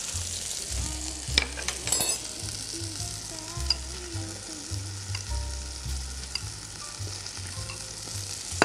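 Chicken breasts sizzling steadily in a frying pan, with a few sharp clinks of a spoon against a bowl and pot as cream is spooned into the sauce.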